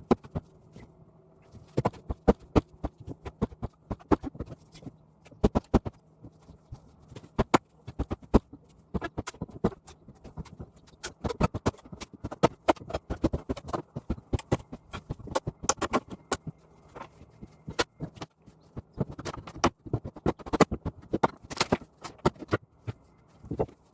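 Irregular sharp knocks and bangs, several a second at times, from hand demolition work taking apart a house's side wall and window.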